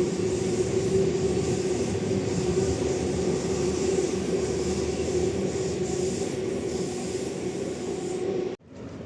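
Electric suburban train running on the rails: a steady motor hum over wheel and rail noise. The sound cuts off abruptly near the end.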